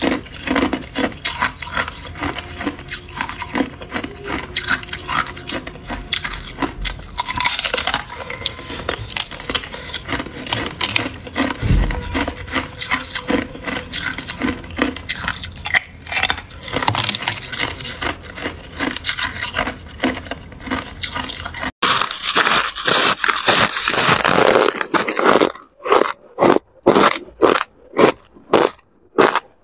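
Crunching and biting of hard clear ice chunks, with many sharp cracks and clicks. About three-quarters of the way through it cuts to louder crunching of crushed ice, which settles into evenly spaced chewing crunches, a little under two a second.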